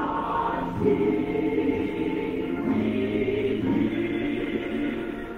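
Choir singing gospel music in held chords that shift every second or so.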